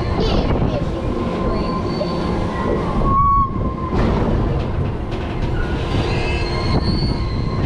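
Swinging pirate ship ride in motion: wind rushing and rumbling across the camera's microphone, with a steady high whine throughout. The rush drops away briefly a little after three seconds, as the ship pauses at the end of a swing, then builds again.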